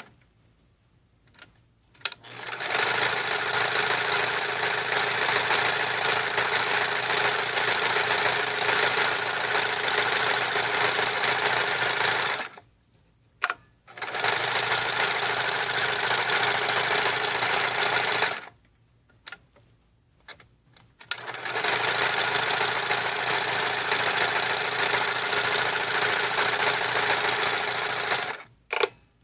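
Morse Stretch Stitch Model 5401 sewing machine stitching at a steady speed, in three runs of several seconds each, stopping briefly between them with a few sharp clicks in the pauses.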